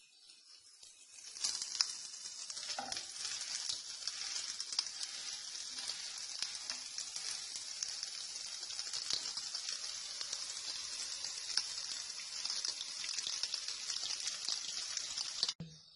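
Desi ghee sizzling on a hot flat griddle (tawa) under a pearl-millet roti: a steady frying hiss with small crackles. It starts about a second and a half in and cuts off suddenly near the end.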